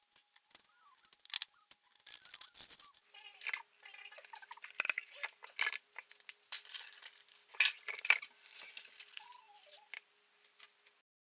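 Flour being tipped from a plastic measuring cup into a fine-mesh metal sieve: irregular rustling and scraping, with sharp clicks and taps of the cup and spoon against the sieve, the loudest in the second half.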